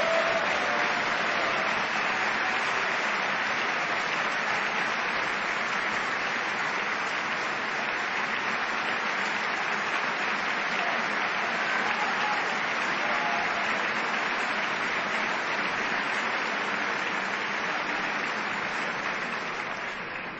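Large audience applauding steadily in a standing ovation, dying down near the end.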